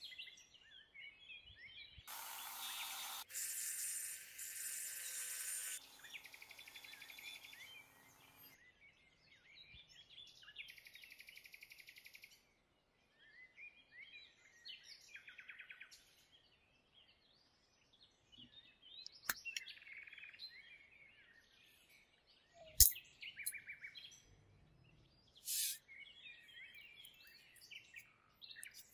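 Birds chirping faintly in the background, with sharp clicks of small metal parts, the shocks, springs and washers of a model truck, handled on a wooden table; the loudest click comes about 23 seconds in. A harsh buzzing noise runs for several seconds near the start.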